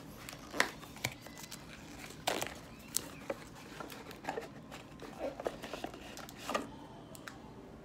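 Trading card pack being opened and handled: crinkling of the wrapper with scattered light clicks and taps of cards.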